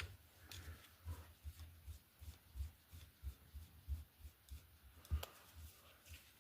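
Faint clicks and taps of a screwdriver and small metal carburetor parts being handled while a small flathead screw is removed, with soft low knocks throughout and sharper clicks about half a second in and about five seconds in.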